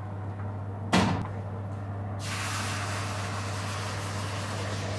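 A sharp knock about a second in, then a steady hiss as water from a kettle is poured onto a hot baking tray in the oven and flashes to steam, the steam that gives the bread its crust.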